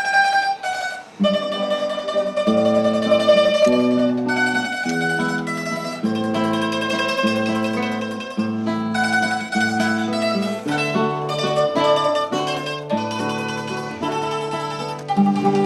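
Mandolin and acoustic guitar playing a tune together: quick plucked mandolin notes over the guitar's changing bass notes and chords.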